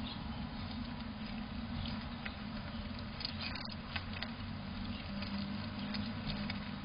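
Fox squirrel foraging in a bowl of birdseed close to the microphone: scattered small clicks and crunches as it picks through and chews the seed, over a steady low hum.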